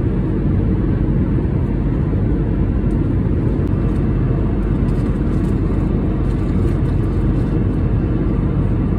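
Steady low drone of jet engines and airflow, heard inside a jet airliner's cabin in cruise.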